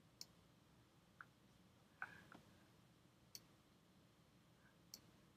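Faint, scattered clicks of a computer mouse and keyboard, about half a dozen over a few seconds, against near silence.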